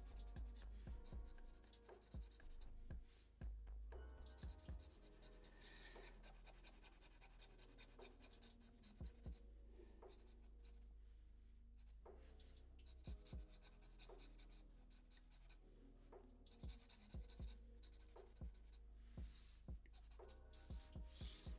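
Faint scratching of a black felt-tip marker on paper, in a series of short strokes.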